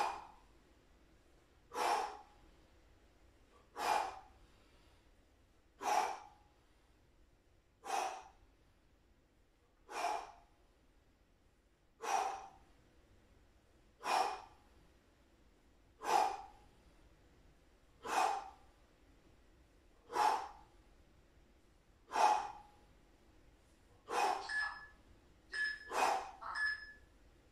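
A man's forceful exhales through the mouth, one with each crunch, about every two seconds. Near the end come several quicker, shorter breaths.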